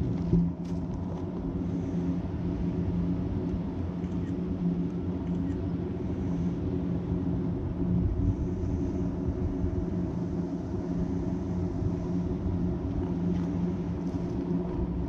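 An engine running at a steady pitch, giving a low, even hum with no rise or fall.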